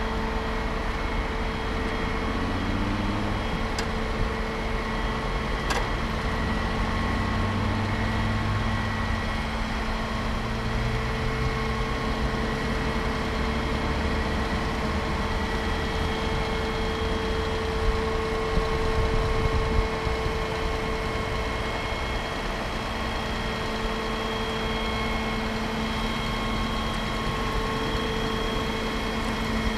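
Aerial ladder fire truck's engine running steadily, a constant even hum.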